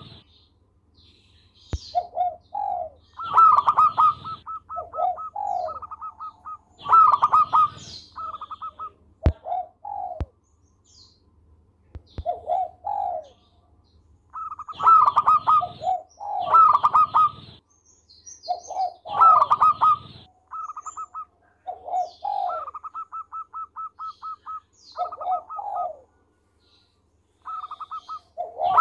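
Zebra dove (perkutut) singing its cooing song. Phrases come every few seconds: a few loud, mellow coos, then a quick staccato run of short higher notes.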